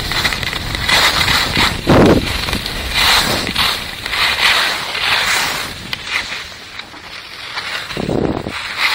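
Skis hissing and scraping over packed snow through a series of turns, swelling with each turn, with a louder scrape near the end, and wind buffeting the microphone.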